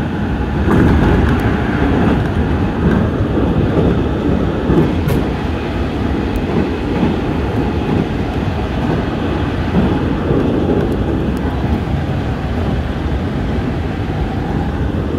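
JR Central 313 series electric train running, heard from inside its front car: a steady rumble of wheels on rail, with a faint steady whine above it and a few light clicks.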